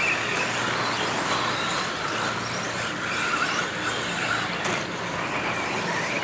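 Several electric RC stadium trucks with 13.5-turn brushless motors racing on a dirt track: overlapping high whines of motors and gearing rising and falling as the trucks speed up and slow down.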